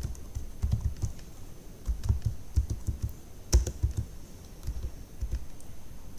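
Computer keyboard typing: an uneven run of keystrokes with short pauses, one louder keystroke about three and a half seconds in.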